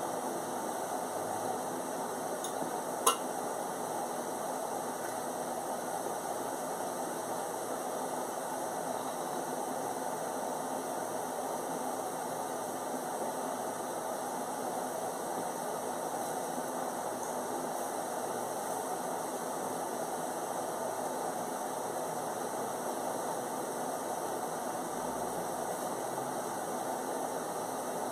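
Steady background noise with no speech, and a single sharp click about three seconds in.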